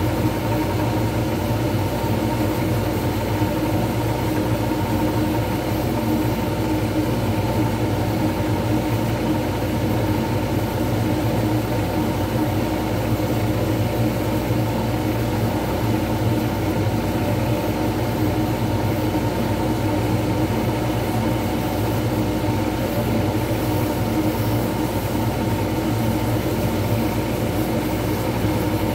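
Wood lathe running at a steady speed, spinning a resin pen blank while a sanding pad is held against the turning blank; a constant machine hum.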